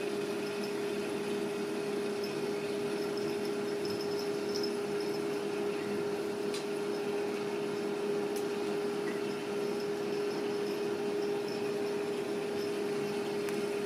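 A steady mechanical hum with one constant tone, unchanging throughout, with a few faint clicks.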